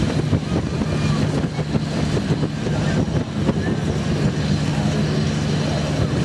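A crowd murmuring and talking over a steady low hum that does not change.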